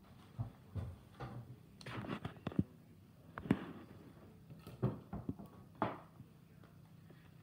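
Hands fastening a paper disc to the mesh top of a pop-up butterfly habitat with safety pins: a string of scattered rustles and small sharp clicks, the sharpest about two and a half and three and a half seconds in.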